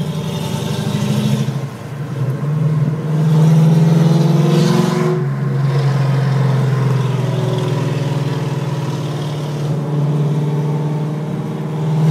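Pontiac GTO's LS2 V8 through a loud custom exhaust, a deep drone under acceleration. It swells about three seconds in, steps down in pitch about five seconds in, and swells again near the end.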